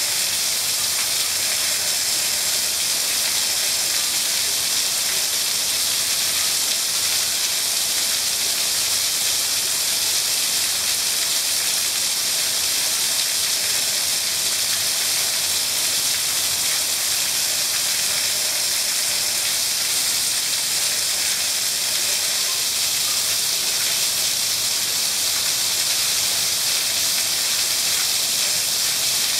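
Heavy tropical rain shower: a steady, even hiss of rain pouring onto a screened pool enclosure, the pool surface and the patio.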